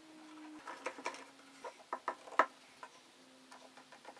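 Metal bar clamps and F-clamps being fitted and screwed tight on a glued-up plywood piece: an irregular string of sharp clicks and knocks, the loudest about two and a half seconds in.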